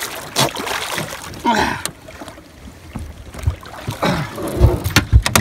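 Water splashing and dripping as a flathead catfish is hauled by hand out of the river over the side of a boat, with a few dull thumps and knocks against the boat near the end as the fish comes aboard.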